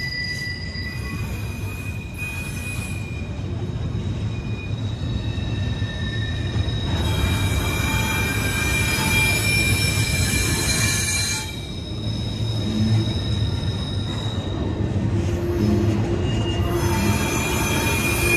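Double-stack intermodal freight train rolling past with a steady low rumble of wheels on rail. High-pitched wheel squeal swells about seven seconds in, drops away briefly around twelve seconds, and comes back strongly near the end.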